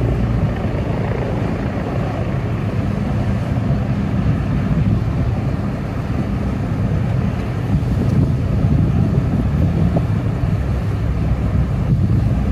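Steady low engine rumble with a faint hum, mixed with wind on the microphone.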